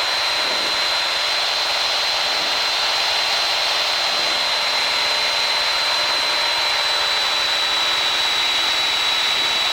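Steady cabin noise of a Piper PA28-161's single piston engine and propeller in flight, heard through the headset intercom as an even rushing noise with a constant high-pitched whine.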